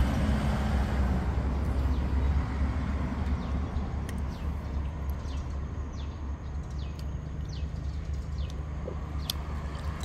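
Low rumble of road traffic, a vehicle passing and fading away over several seconds, with small birds chirping repeatedly from about three seconds in.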